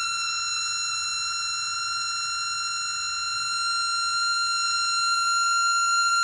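Laser projector with very bad bearings, its spinning part whining loudly as one steady high-pitched tone with overtones. The pitch creeps slightly up and the whine grows a little louder near the end.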